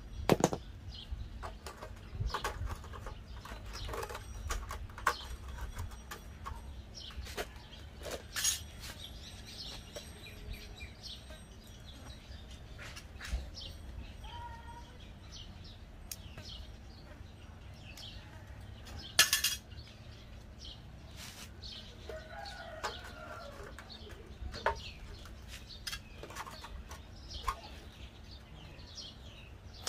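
Small metal stove parts and hand tools clicking and clanking as an old portable gas stove is worked on by hand, with a sharp clank about two-thirds of the way through. Chickens cluck in the background now and then.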